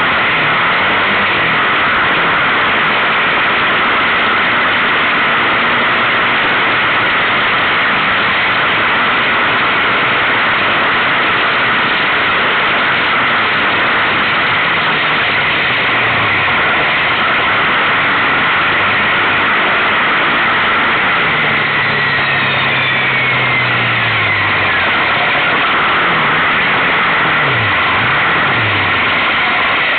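Kawasaki KFX700 quad's V-twin engine running at speed on a dirt track, under a loud steady rush of wind on the onboard camera's microphone. The engine pitch falls slowly about two-thirds of the way through, then dips and rises twice near the end as the throttle changes.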